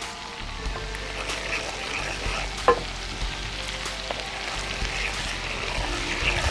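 Chili oil cooking: garlic and chillies frying in plenty of oil in a pan, sizzling and bubbling steadily as a wooden spatula stirs it. A single sharp knock comes a little under halfway through.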